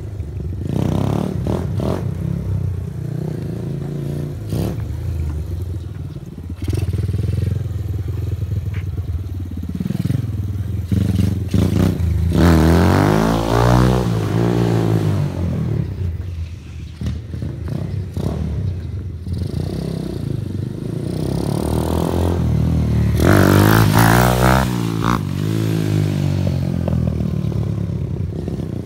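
Taotao Hellcat 125cc single-cylinder mini motorcycle with an aftermarket exhaust, ridden around and revved hard. It comes loudest twice, about halfway through and again near the end, its pitch rising and falling as it speeds up and passes by.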